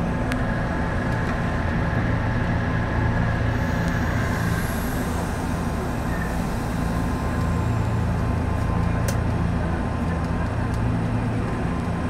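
Nishitetsu electric commuter train running and slowing almost to a stop at a station, heard from inside the front car: a steady low rumble of wheels and running gear, with a few faint clicks.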